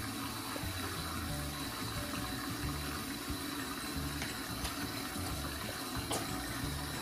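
Bathroom tap running a thin stream into a sink, a steady splashing hiss.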